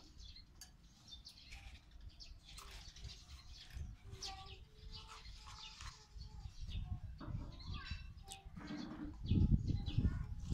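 Metal spoons scraping and digging watermelon flesh out of the rinds: a run of small wet scrapes and clicks, with short chirps among them. A louder low bumping comes about nine seconds in.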